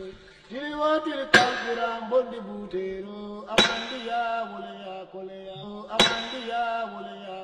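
Slow chant-like singing with long held notes, punctuated three times by a sharp ringing metallic clang, about two and a half seconds apart.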